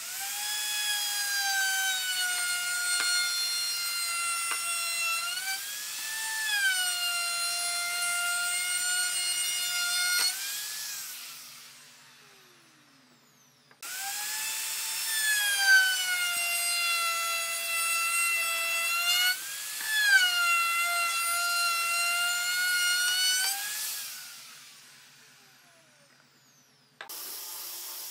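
An 1850 W electric wood router is switched on and runs with a high, steady whine, its pitch sagging and recovering as the bit cuts the wood. It is switched off and winds down with a falling whine, then the same again a second time. Near the end a steady rushing noise starts: an angle grinder with a sanding disc working against a wooden dowel.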